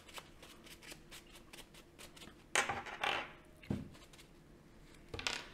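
Paper tissue rustling and crinkling in the hands as a small valve part is wiped dry, with a few louder crinkles about two and a half seconds in, again a second later and near the end.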